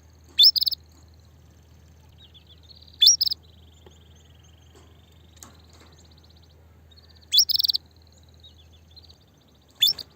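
Female canary giving its mating call, the call of a hen ready to breed: four loud calls a few seconds apart, each a quick rising whistle followed by a short buzzy note, with quieter twittering trills between them.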